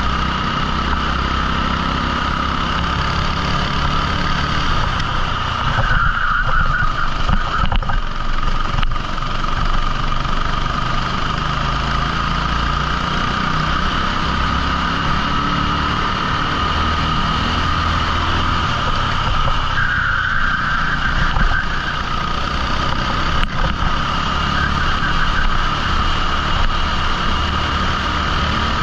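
A 14 hp rental kart engine running steadily at racing speed, heard from on board. Twice, about six and twenty seconds in, a higher-pitched sound rises over it for a second or so.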